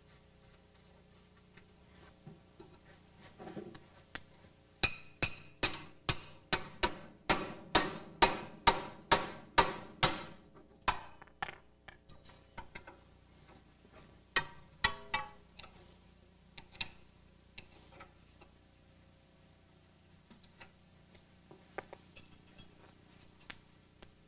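Hammer striking a ball joint fork (pickle fork) to drive a tie rod end's tapered stud out of its socket on a GM double A-arm front suspension. A quick, even run of ringing metal-on-metal blows, about three a second, starts about five seconds in and lasts about five seconds, followed by a few scattered single strikes and clinks.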